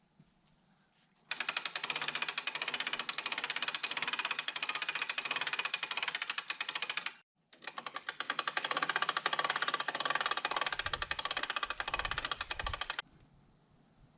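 A power tool runs at steady speed with a rapid, rattling drone. It comes in two long stretches, broken by a short gap about seven seconds in, and stops abruptly near the end.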